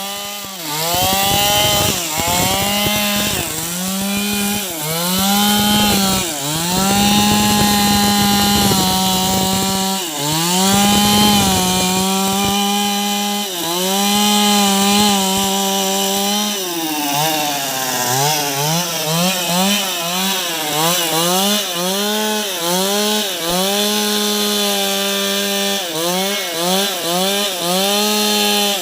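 Chainsaw cutting wood. The engine runs at high revs and its pitch sags and recovers again and again as the chain bites into the cut. Past the middle it drops low, then revs up and down quickly several times before settling back to steady cutting.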